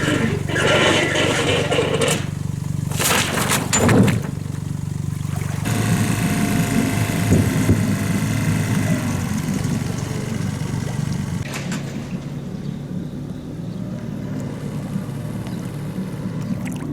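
A motor engine running steadily with a low drone. There are a couple of sharp knocks about three and four seconds in, and the running note grows busier from about six seconds on.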